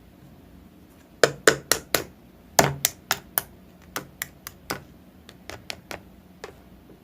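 A run of about seventeen sharp clicks or taps, mostly in quick groups of four, loud at first and growing fainter toward the end.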